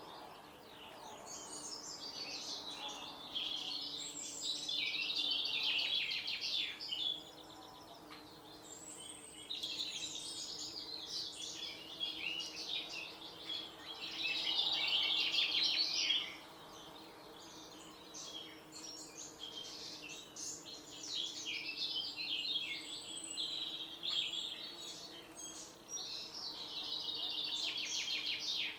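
Birds singing in long, rapid, jumbled high-pitched phrases a few seconds long, separated by short pauses.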